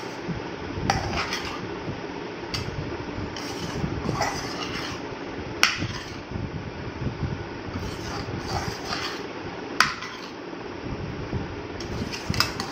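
Metal slotted spoon stirring and scraping a moist chickpea and chopped-vegetable mix in a stainless steel pan, with a few sharp clinks of the spoon against the pan.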